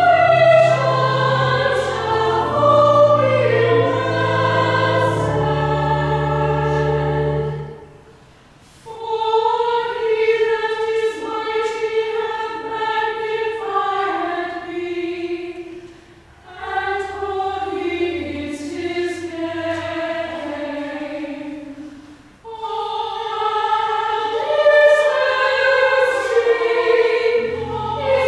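A church choir singing in sustained phrases, with brief breaks about 8, 16 and 22 seconds in. A steady low organ bass holds under the first seven seconds or so.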